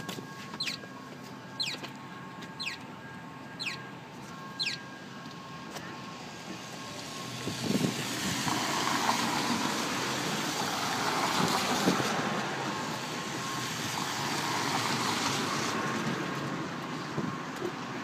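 A vehicle passing on a wet street: the hiss of its tyres on water swells from about six seconds in and fades near the end. Before it, a high, short falling chirp repeats about once a second for the first five seconds over a faint steady tone.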